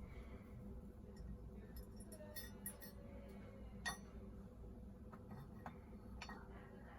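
Faint clinks and taps of small metal parts being handled, scattered and irregular with one sharper tap about four seconds in, over a low steady hum.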